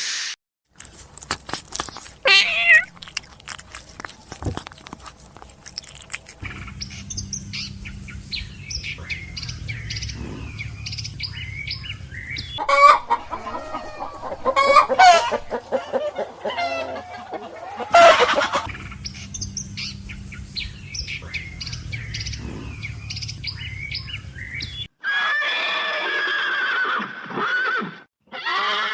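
Chickens clucking and calling across several short clips joined with abrupt cuts.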